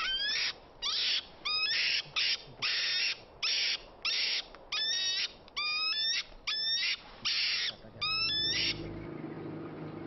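European mink calling in protest while being handled: sharp rising squeals alternating with short hisses, one to two a second, which stop near the end. A faint low steady hum takes over after that.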